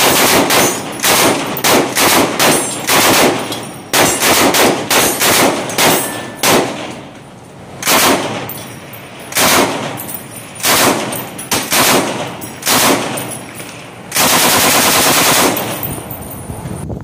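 Light machine gun firing fully automatic in about a dozen short bursts, then one longer burst of about a second and a half near the end.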